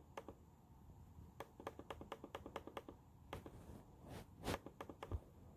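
Faint quick clicks and taps of a finger on a laptop touchpad while scrolling, a fast run of them in the middle and a few louder ones with a brief scrape near the end.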